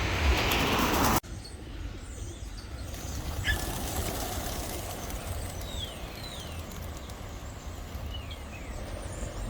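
A loud rushing noise cuts off abruptly about a second in. After it comes a quieter outdoor background with a low rumble and a few short, falling bird chirps.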